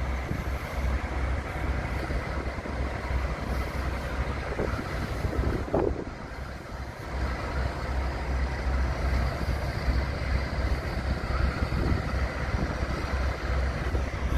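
Diesel locomotive engines running with a steady low throbbing rumble, from a heritage diesel consist led by Class 52 D1015 'Western Champion' with Class 20s. A brief higher squeal comes about six seconds in.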